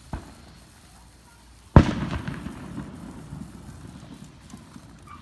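Fireworks going off: a small pop just after the start, then a loud bang about two seconds in with a rolling echo that fades over the next few seconds.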